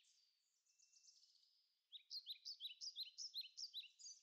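Faint songbird song: a rapid run of short, down-slurred high chirps starting about two seconds in, after a few weaker chirps.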